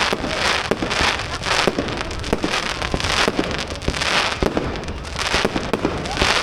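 Fireworks display: a continuous run of sharp bangs and pops, with repeated bursts of hissing crackle about once a second.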